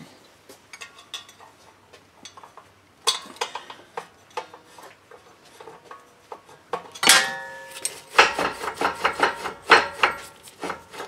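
Metal clicking and clinking as a parking-brake star-wheel adjuster is backed off with a tool behind the rear brake rotor, and the rotor is turned by hand. A sharp metal clank with a short ring comes about seven seconds in, followed by a quick run of clicks.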